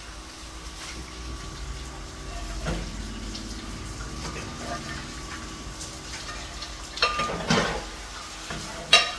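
Kitchen tap running while dishes are scrubbed and rinsed in a steel sink, with a clatter of pans and plates about seven seconds in and a sharp clank near the end.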